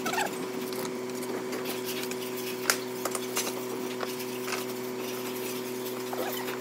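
Steady machine hum with light scraping and tapping of a small trowel working wet cement on a column capital, the sharpest tap about two and a half seconds in. A bird chirps briefly near the start and again near the end.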